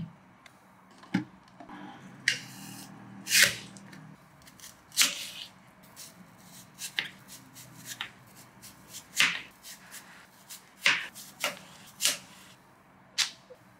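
Chef's knife cutting a red apple into wedges on a cutting board: about a dozen crisp, irregularly spaced cuts, each a short crunch through the fruit and a sharp knock of the blade on the board.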